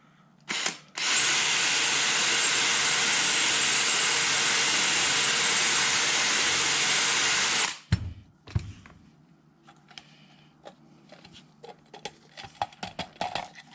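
Power drill spinning a flap sanding wheel, running steadily with a constant high whine for about six and a half seconds while the tight bore of a plastic lampshade piece is sanded out to fit. It cuts off abruptly, followed by light clicks and knocks as the part is handled and test-fitted.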